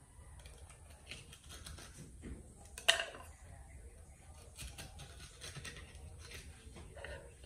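Faint knife scraping and small clicks on a wooden cutting board as a tilapia is filleted, with one sharp clack about three seconds in as a knife is set down on the board.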